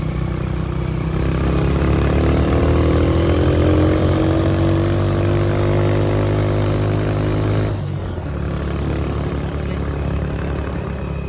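A vehicle engine running as it travels, its pitch rising over the first few seconds and then holding steady before dropping away abruptly about two-thirds of the way through, over a steady low road and wind rumble.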